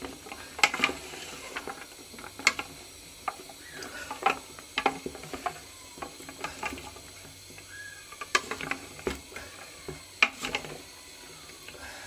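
Goat trotters being stirred in masala in a metal pressure cooker: irregular clacks and knocks of the bony pieces against each other and the pot.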